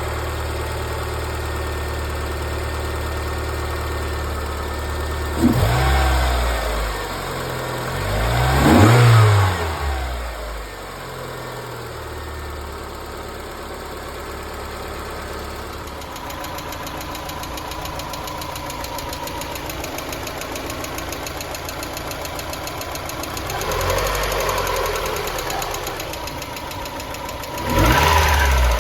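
Car engine idling with a loud, fast tappet ticking from its hydraulic lash adjusters, revved up and back several times. The owner puts the noise down to the car having sat unused for a long time.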